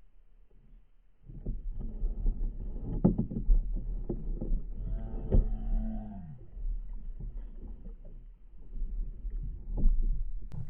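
Handling noise on a small boat: repeated knocks and rubbing over a low rumble. About five seconds in there is a short pitched sound that drops in pitch at its end.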